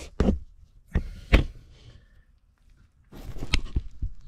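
A few separate knocks and clunks, the loudest a little over a second in, then a shuffling, rustling noise with more knocks near the end.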